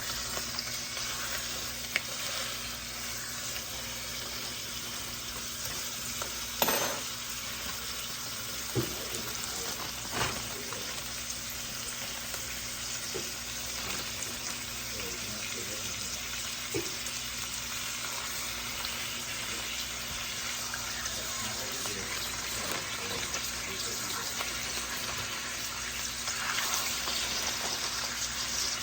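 Chicken frying in hot bacon grease in a pan: a steady sizzle, with a few sharp clicks, the loudest about seven seconds in.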